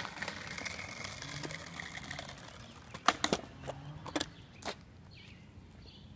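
Skateboard wheels rolling over rough, gravelly asphalt, then four sharp clacks of the board a little after halfway as it is kicked up and grabbed.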